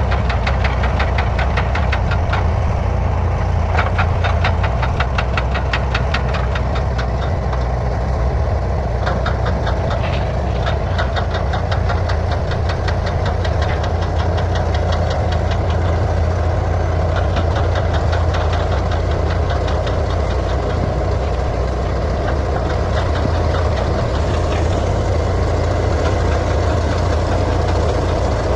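Komatsu D155A bulldozer's diesel engine running steadily with a deep hum, overlaid by a rapid clatter of clicks that is strongest in the first ten seconds or so.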